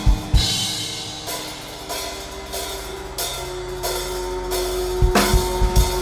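Improvised drum-kit playing: two bass-drum kicks right at the start, ringing cymbal strokes, then a quick cluster of kicks near the end. Under it a held tone grows louder about halfway through.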